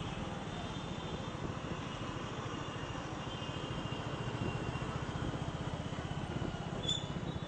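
Vehicle engine running steadily, a low rapid throb under a haze of outdoor noise, with two brief high chirps near the end.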